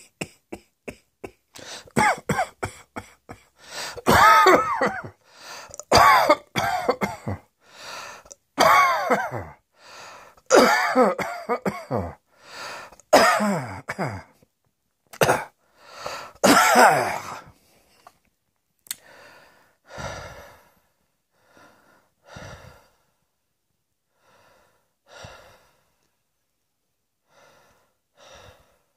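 A person coughing in a long fit. A few small coughs come first, then a run of loud, closely spaced coughs. After about two-thirds of the way through they fade to weaker, scattered coughs.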